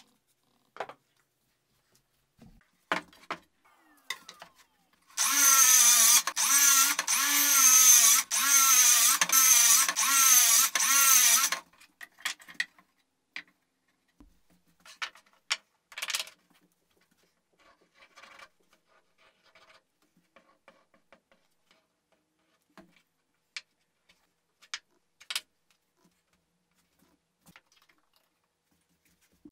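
A handheld power tool's motor runs loudly for about six seconds, its pitch wavering as if under load, with several brief drop-outs. Before and after it come scattered clicks and knocks of clamps and wood being handled.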